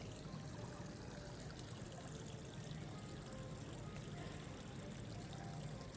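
Steady trickle of running water with a low hum beneath it.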